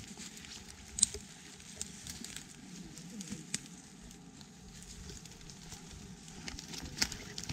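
Irregular crackling of dry twigs and woodland debris being trodden on and handled, with a sharp snap about a second in and another near the end.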